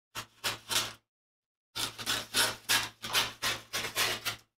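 Scissors cutting brown paper into thin strips: three quick snips, a pause of about a second, then a steady run of about eight more.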